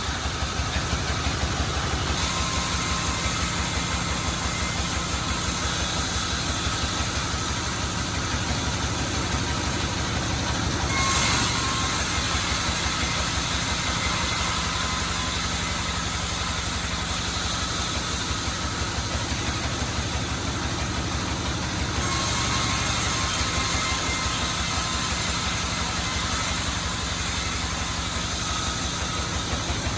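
Sawmill machinery running steadily while teak is sawn into rafters: an engine's fast, even pulsing under a constant hiss. The sound swells briefly about eleven seconds in.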